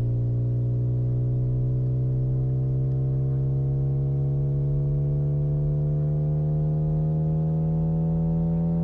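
Simulated car engine sound: a steady, buzzy tone that rises slowly and evenly in pitch as the car keeps accelerating toward top speed in high gear.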